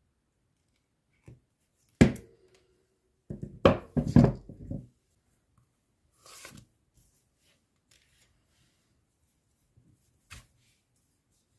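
Hand-tool work on small parts at a bench: a sharp click about two seconds in, a quick cluster of knocks and snips around four seconds, a short scrape a little after six seconds, and one more click near the end.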